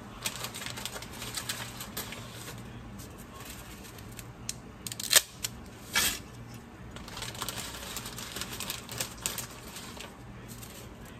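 Dry spaghetti noodles being snapped in half and dropped into a pot: a run of irregular clicks and crackles, with two sharper snaps about five and six seconds in.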